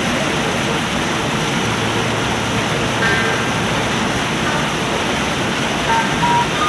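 Steady rush of flowing water in a concrete ditch, with a few faint short chirps above it.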